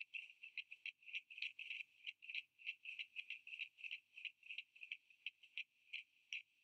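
Faint wingbeats of a young lesser spotted eagle flapping hard as it jumps and hovers above its nest: quick, uneven flaps about three to four a second, each a brief whoosh.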